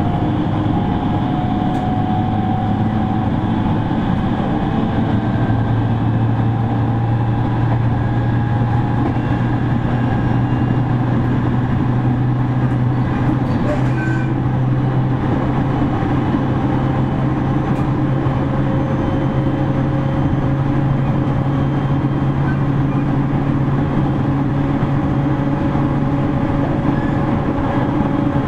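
JR East 701-series electric train heard from inside its motor car while running at speed: a steady rumble of wheels on rail with a steady hum that rises slightly in pitch a few seconds in.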